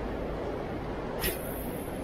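Steady rush of a fast river running high with spring runoff, with a single sharp click about a second in.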